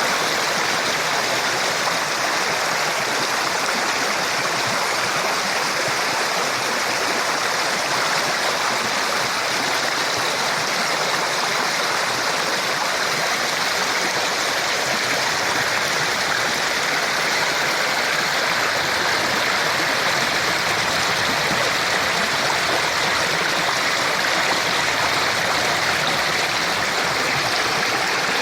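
Flooded creek rushing and splashing, a steady, loud sound of fast-running high water with no break.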